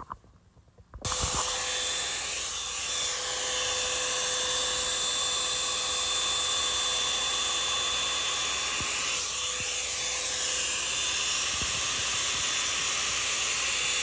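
Revlon hair dryer and volumizer, a hot-air brush dryer, switched on about a second in and then running steadily: an even rush of blown air over a steady motor whine.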